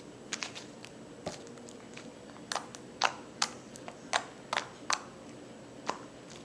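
Sticky scented slime being stretched and pressed in the hands, giving a string of sharp, irregular little clicks and pops as it sticks and pulls away.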